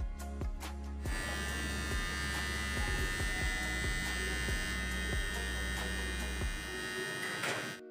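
Philips electric beard trimmer, running from an add-on AA rechargeable battery pack, starts about a second in and runs with a steady high motor whine and blade buzz, then cuts off sharply near the end.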